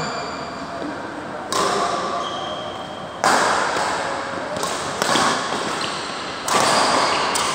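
Badminton rally: rackets striking the shuttlecock, about four sharp hits roughly a second and a half apart, each ringing on in the echo of a large sports hall.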